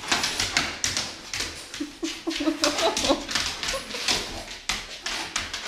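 A large dog whining excitedly, with a short rising whimper about two seconds in, over the quick clicking and scrabbling of its claws on a hardwood floor as it jumps up and paws at a person.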